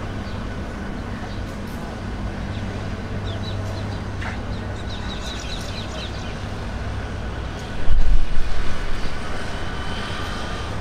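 Jet engines of a Boeing 787-10 Dreamliner on final approach to landing, a steady low hum, with birds chirping. About eight seconds in, a sudden loud low rumble takes over and slowly fades.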